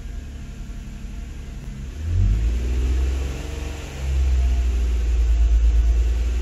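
Nissan Maxima's 3.5-litre V6 engine being revved with no load during a charging-system test. It runs at a steady low rumble, climbs about two seconds in, eases off briefly, then picks up again and holds the higher speed. Even at the higher rpm the alternator is not charging.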